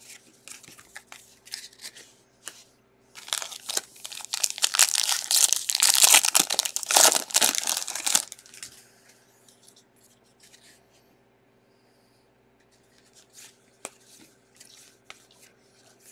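The foil wrapper of a 2021 Bowman trading-card pack is torn open and crinkled, a loud stretch of tearing and crackling from about three to eight seconds in. Either side of it come light clicks and snaps as the cards are handled and thumbed through.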